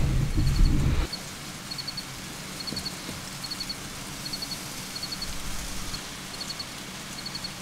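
A low rumble stops abruptly about a second in. After it come steady cricket chirps: short high chirps of three or four quick pulses, repeating a little more often than once a second, over a faint low hum.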